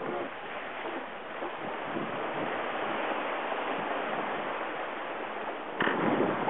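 Wind and sea water rushing steadily past a sailing yacht under way, with a louder surge near the end.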